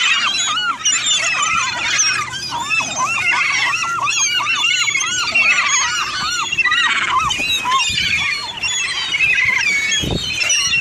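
A flock of gulls calling all at once: many high, arched calls overlapping in quick succession. A low thump comes near the end.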